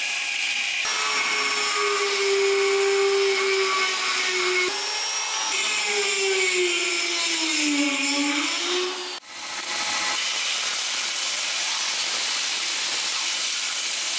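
Power grinding of a spring-steel sword blank: the steel hisses against a spinning grinding wheel over a whining motor tone that sags in pitch as the blade is pressed harder. About nine seconds in the sound breaks off sharply and gives way to the steady hiss of a belt grinder.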